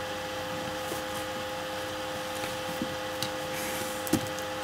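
Room tone in a pause of speech: a steady hiss with a faint, even hum, broken by a few small clicks, the clearest about four seconds in.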